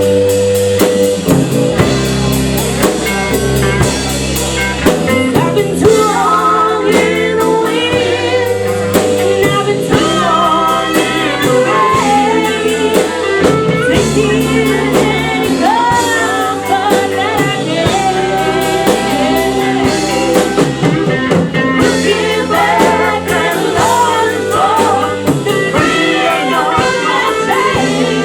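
Live band playing blues-rock: drum kit keeping a steady beat under guitar, with a singer's voice coming in about five seconds in and carrying on over the band.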